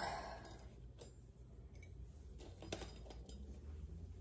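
A few faint clinks and taps of glassware and kitchen utensils being handled on a counter, over quiet room tone.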